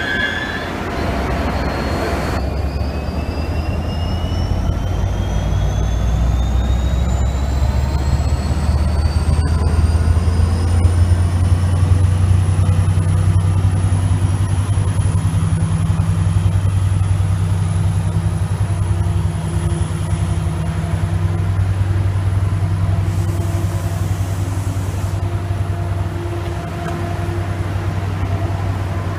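Vossloh diesel-electric locomotive running, a heavy low engine drone that builds and stays loud, with two high whines rising steadily in pitch over about ten seconds as the train gets under way, then holding high. Brief high steady tones sound in the first two seconds.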